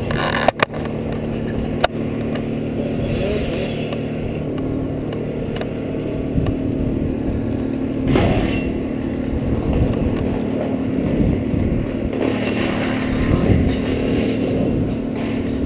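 An engine running steadily throughout, with a few sharp clicks in the first two seconds.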